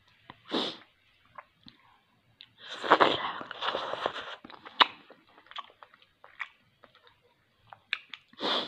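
Close-up eating sounds: a green bean bitten and chewed, then a slurp of fish and moringa soup broth from a spoon about three seconds in. Scattered lip smacks and small mouth clicks follow.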